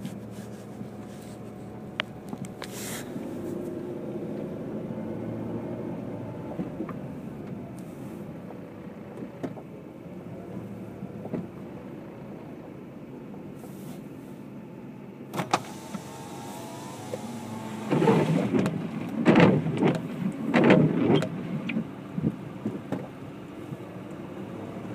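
Car cabin noise from a car rolling slowly on a snowy road, the engine and tyres giving a steady low hum. A few light clicks are heard, and for a few seconds past the middle a louder, choppy noise rises and falls over the hum.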